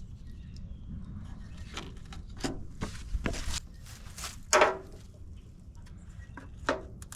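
A handful of short, scattered clicks and knocks, handling noise, over a low steady rumble.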